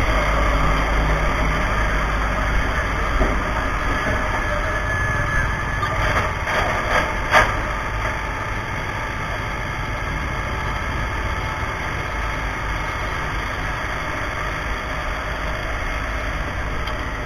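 Fire truck's engine running steadily with a deep rumble, with a few short knocks about six to seven seconds in.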